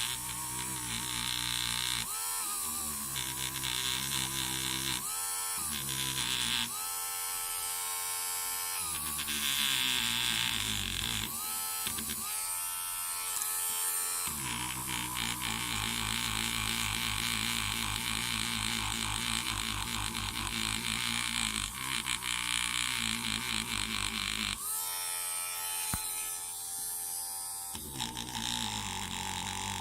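Cordless rotary mini tool spinning a felt polishing pad charged with diamond paste against a stainless steel watch clasp. Its motor whine falls and rises in pitch several times as the work goes on.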